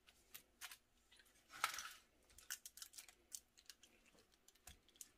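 Faint clicks and rustles of gloved hands handling food on a foil-lined baking tray as raw steaks are laid on top of the vegetables, with one longer rustle about one and a half seconds in.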